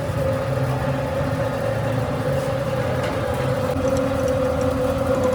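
Manual lathe running steadily: a constant mid-pitched whine over a low machine hum.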